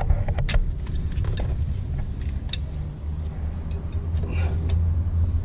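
A few sharp metallic clicks from a socket and breaker bar being handled and fitted, over a steady low rumble.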